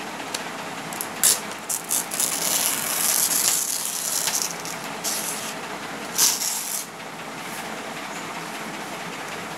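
Paper rustling and crinkling as a sheet is handled and rolled on a table, in several bursts with a few sharp crackles between about one and seven seconds in, over a steady background hiss.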